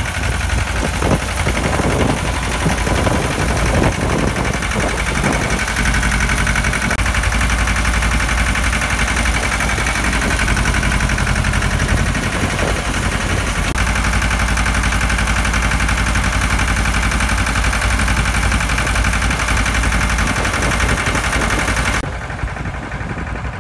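Vintage stationary engine running steadily with a deep, continuous rumble, turning a long flat drive belt to belt-driven machinery, with irregular knocks in the first few seconds. The sound drops in level near the end.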